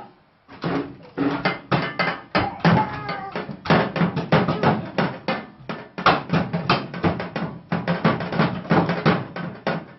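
Fast rhythmic percussion, dense strikes about three or four a second, starting about half a second in.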